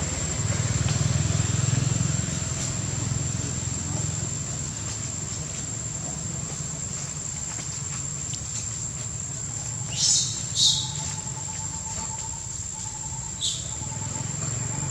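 Three short, high-pitched animal squeaks, two close together about ten seconds in and one a few seconds later, over a steady low hum and a constant thin high whine.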